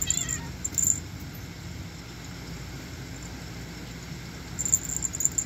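Light rustling over a steady low rumble, with short crackly flurries in the first second and again near the end as a cat pounces on a feather wand toy above a fleece blanket.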